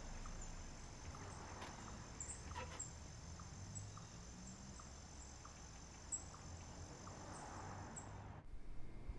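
Faint night ambience of crickets: a steady high trilling with short chirps repeating over it, cutting off abruptly just over eight seconds in.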